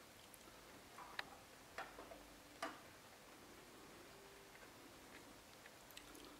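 Eurasian red squirrel moving about on a wooden nut feeder: three sharp knocks over about a second and a half, then a few faint ticks near the end.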